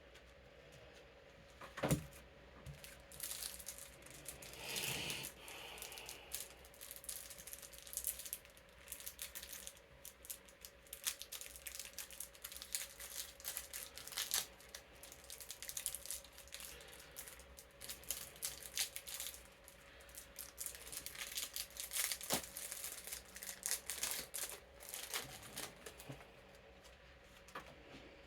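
Plastic card sleeves and cards crinkling and rustling as cards are slid into their sleeves, in an irregular string of short scratchy rustles with a sharp click about two seconds in.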